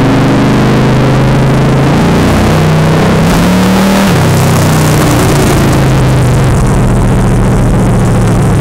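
Chevrolet Chevelle's engine running loud under throttle, climbing in pitch about three seconds in and dropping sharply at about four seconds as the revs fall, then running on steadily at lower revs.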